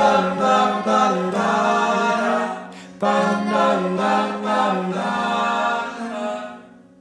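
A song's wordless sung vocal line ('ba-da-da'), in two phrases with a short break between them; the second phrase fades out near the end.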